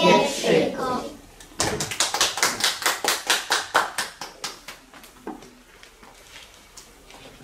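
Children's voices singing for the first second, then a run of quick, even hand claps, about five a second, lasting roughly three seconds and fading away.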